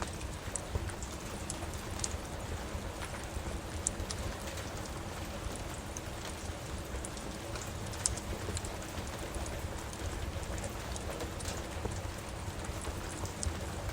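Steady rain with scattered sharp crackles and pops from a wood fire in a fireplace.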